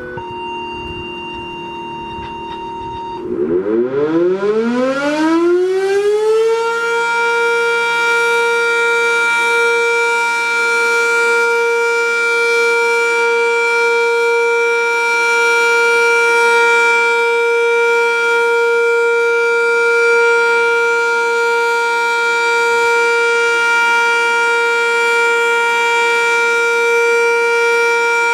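A dispatcher's tone-out tone over a radio scanner holds steady for about three seconds, then the Sentry 7V8 warning siren it activates winds up, rising in pitch for about three seconds, and holds a loud steady wail.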